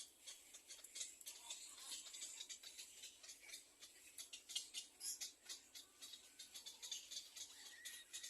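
Little egret nestlings making a faint, rapid, high-pitched clicking chatter, the sound of chicks begging for food.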